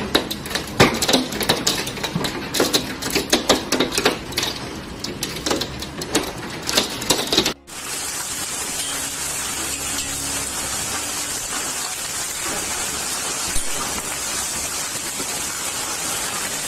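Hailstones clattering fast and irregularly against a window and hard paving. About seven and a half seconds in there is an abrupt cut to a steady hiss of hail and rain falling into a swimming pool.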